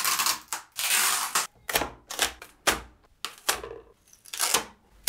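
A large 3D-printed part being peeled off the printer's flexible steel build plate, crackling as it comes away. There is a long rasping stretch at first, then about half a dozen sharp snaps.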